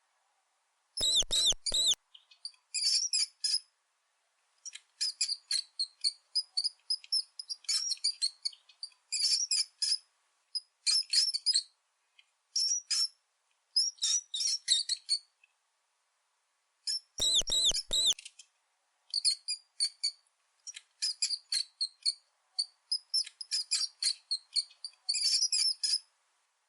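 Mouse squeaking: runs of rapid, high-pitched chirps broken by short pauses, with two louder, fuller bursts, about a second in and again near the seventeen-second mark.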